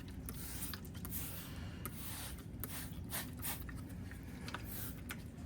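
Water being worked onto a VENEV F800/F1200 diamond sharpening stone, heard as a run of short, irregular rubbing strokes.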